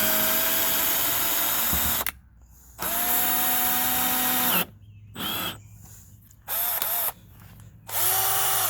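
Worx 20-volt cordless drill run in bursts on the trigger: two runs of about two seconds each, then three short bursts, the motor whine winding up and down with each one.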